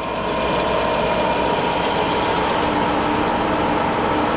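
Overbeck 600RU hydraulic universal cylindrical grinder running, its 20-inch grinding wheel spinning: a steady machine hiss with a held hum, which swells a little in the first second. A second, lower hum joins about halfway.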